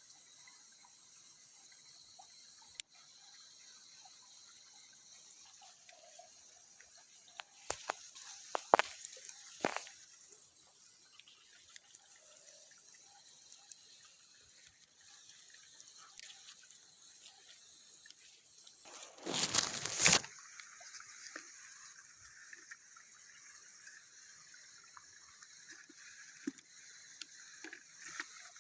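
Insects shrilling steadily in a high, even drone. A few sharp knocks come about a quarter of the way in, and a brief, louder noisy burst comes about two-thirds through.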